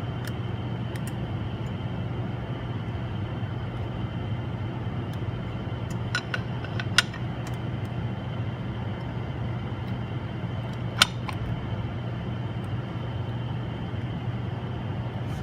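Steady hum of a phone-screen laminating machine running, a low drone with a thin high tone above it. A few sharp clicks come about six to seven seconds in, and a single louder click about eleven seconds in.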